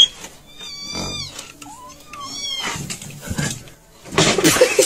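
A cat meowing several times in high, drawn-out calls, followed near the end by a loud burst of noise.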